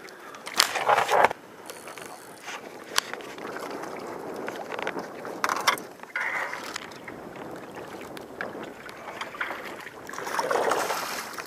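Wind on the microphone and small wind-driven waves lapping against a small boat's hull. Loud knocks near the start come from the camera being handled.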